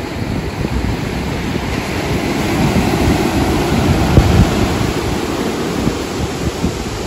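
Sea surf breaking and washing up the beach, swelling to its loudest about three seconds in, with wind buffeting the microphone.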